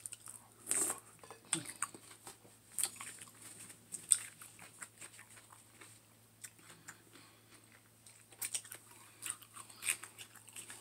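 A person biting and chewing raw cucumber: irregular crisp crunches and wet mouth clicks.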